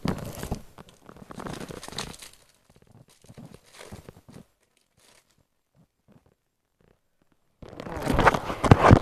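Trading-card packet wrapper being torn open and crinkled, with handling of the cards, in irregular crackly bursts: a few seconds of it, a pause of about three seconds, then the loudest crinkling near the end.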